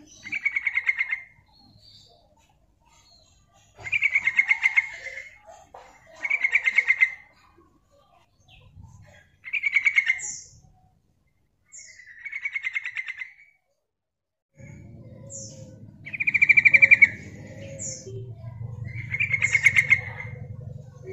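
Yellow-vented bulbul calling: short, rapid bubbling trills at one pitch, each about a second long, repeated every two to three seconds. A low steady hum comes in about two-thirds of the way through.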